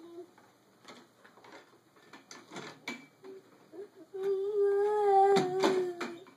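A plastic toy knocked and rattled against a metal stair gate several times. About four seconds in, a toddler holds one long hummed or sung vowel for about two seconds, louder than the knocks, while the knocking goes on.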